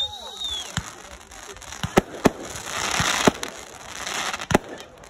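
Aerial fireworks going off: a string of about seven sharp bangs, several in quick succession around two and three seconds in and one more near the end, with a crackling hiss from the bursting stars in between.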